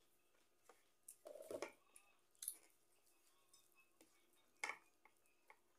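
Mostly near silence, with a few faint, short clicks and taps of fingers scooping and pressing rice on a ceramic plate; the loudest is a brief soft knock about a second and a half in.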